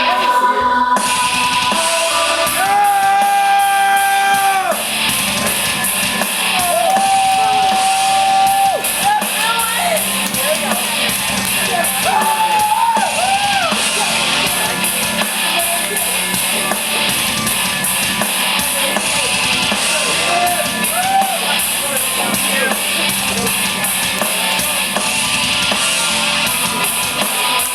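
Rock entrance theme playing loudly, with a singer and a drum kit, as a wrestling team comes out to the ring; there may be yelling mixed in.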